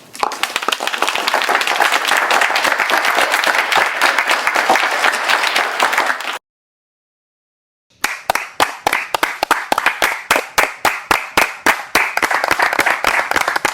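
Audience applause. A dense crowd clapping runs for about six seconds and stops abruptly. After a short gap comes crisper clapping in evenly spaced claps, about five a second.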